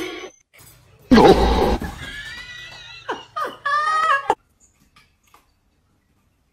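A cat yowling: a loud, harsh cry about a second in that draws out with a wavering pitch, then a few shorter meows a little after three seconds.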